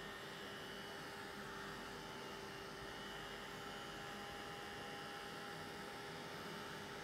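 Handheld craft heat tool running steadily, its fan giving an even hum and hiss while it dries wet spray ink on a canvas.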